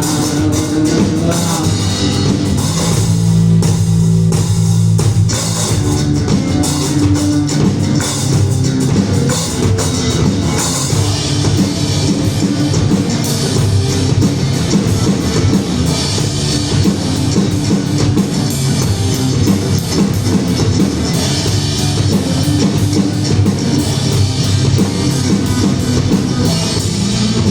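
Live rock band playing loudly: electric guitar over a drum kit with a steady beat.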